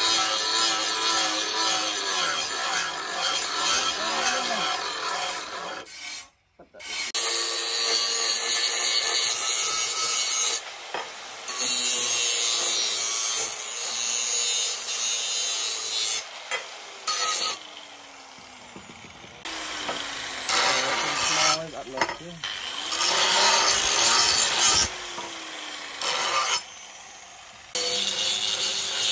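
Electric angle grinder with an abrasive disc grinding the steel of a rusty cleaver blade: a motor whine under a harsh grinding hiss, in several stretches cut off abruptly, the whine dipping and recovering as the disc is pressed into the steel.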